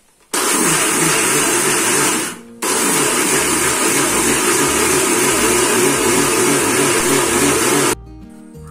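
Electric mixer grinder running, grinding rice batter. It starts about a third of a second in, stops for a moment just after two seconds, runs again, and switches off near the end.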